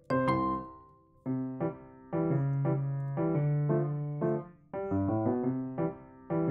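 Background piano music: notes and chords struck every half second or so over held low notes, pausing briefly between phrases.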